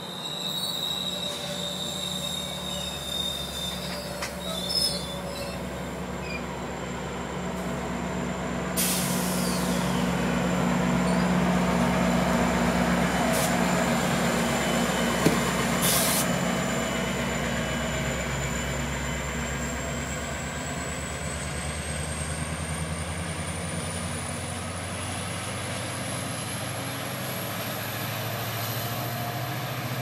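A GO Transit bilevel commuter train and its MP40PH-3C diesel locomotive passing at close range: a steady rumble of rolling wheels and engine that is loudest as the locomotive goes by about halfway through. Thin, high wheel squeal rides on top, with one squeal rising slowly in pitch over the second half, and a few sharp clicks from the wheels on the rail.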